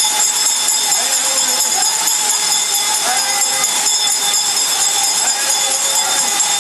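Steady rush of a waterfall, with a faint, steady high ringing over it and now and then faint voices.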